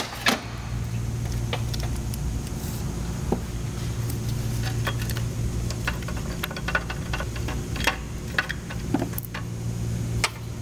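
Scattered light metallic clicks and clinks of a socket wrench and bolts as the two 12 mm idler-pulley bolts are backed out, thickest in the second half, over a steady low hum.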